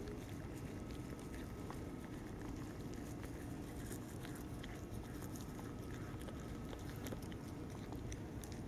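A cat chewing food eaten from a hand, heard as faint irregular clicks over a steady low background noise.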